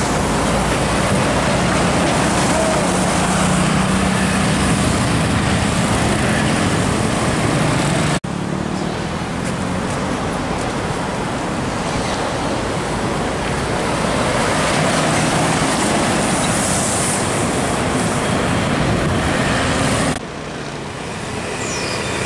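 Hino heavy trucks' diesel engines running as they pass slowly through a bend, over steady road traffic noise. The sound changes abruptly about eight seconds in and again near the end.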